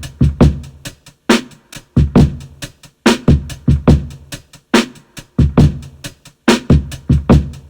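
Boom bap drum-machine beat played from the Akai MPC Sample's stock sounds: deep kick drums in a repeating pattern under a steady run of short hi-hat ticks.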